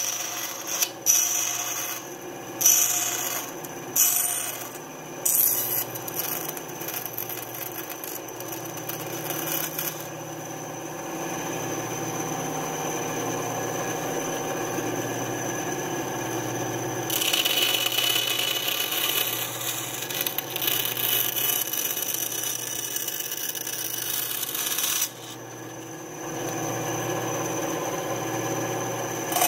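Small benchtop bandsaw running steadily, its blade cutting thin lite plywood wing ribs with a rasping, rubbing sound. There are several sharp clicks in the first few seconds, and the level dips briefly about 25 seconds in.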